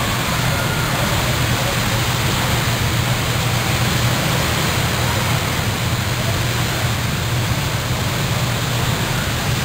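Many go-kart engines running together on an ice track, blending into a steady dense drone with a low hum underneath and no single engine standing out.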